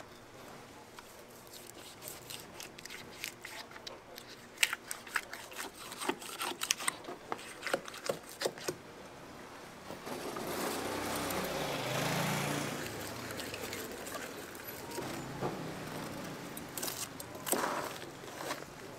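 A long knife cutting and scraping through the thick, tough skin of an ocean sunfish as it is skinned: scattered clicks and scrapes. In the middle a louder steady rushing noise runs for about four seconds.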